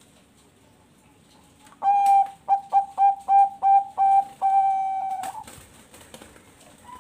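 Bangkok-type zebra dove (perkutut) singing one full coo phrase: an opening note, a quick run of about seven short notes, and a long held final note.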